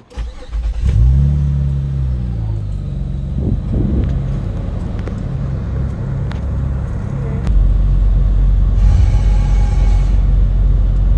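2003 Acura MDX's 3.5-litre V6 cranking briefly and catching, revving up and then settling to a steady idle. The idle gets louder and deeper about seven seconds in.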